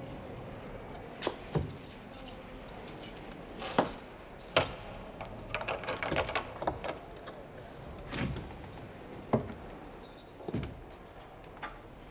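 A bunch of keys jangling and clinking at the lock of a heavy riveted steel cell door. A string of sharp metallic clicks and clunks comes from the key working the lock and the door being opened.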